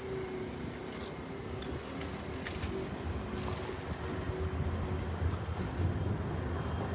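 Steady outdoor city background noise by a canal, with a low rumble that grows stronger about halfway through and a few faint clicks.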